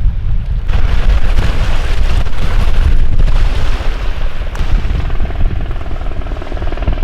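Coast Guard search helicopter flying over the bay, its rotor blades making a steady rapid beat over a heavy low rumble, mixed with wind on the microphone.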